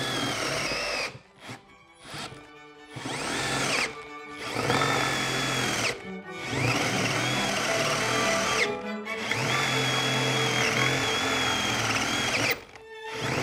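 Milwaukee M12 Fuel hammer drill turning a 2-inch Forstner bit into a wooden beam. The motor whine runs in stretches of one to a few seconds, stopping and starting again about five times, and rises in pitch at each restart. The drill is cutting slowly: it is being pushed past what it is meant for, and the bit is slipping in the chuck.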